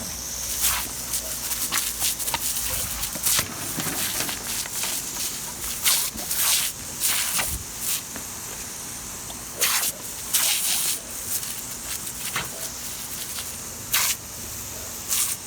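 Garden hose spraying water in a steady hiss, broken by frequent irregular splashes and spatters as dogs play in the stream.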